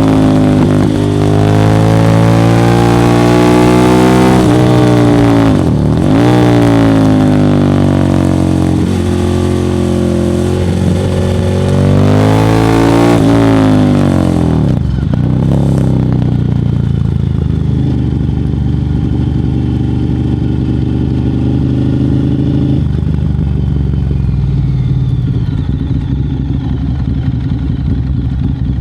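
Ducati Monster 1100 EVO's air-cooled L-twin, breathing through a Termignoni exhaust, revved up and let fall back several times, then settling into a steady idle for the second half.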